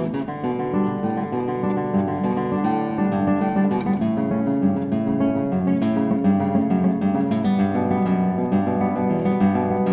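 Instrumental guitar music, with plucked and strummed notes changing at a steady pace.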